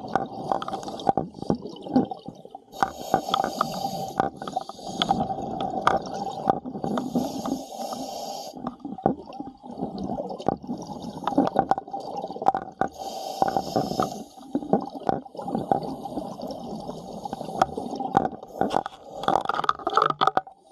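Underwater sound from a scuba dive: a diver's regulator breathing, with exhaled bubbles rushing out several times, and many sharp clicks and knocks as the camera bumps against the diver's gear. A faint steady tone runs beneath.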